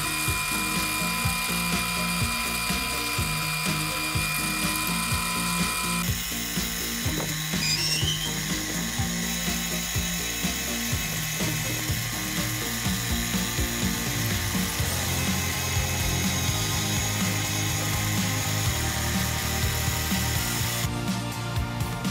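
Small metal lathe running while drilling and boring the centre hole in a nylon block; the machine's steady tone changes abruptly about six seconds in. Background music with a slow bass line plays over it.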